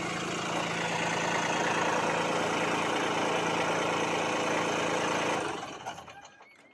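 Kubota LX2610 compact tractor's diesel engine running steadily, carrying a front-mounted snowblower. The sound dies away about five and a half seconds in.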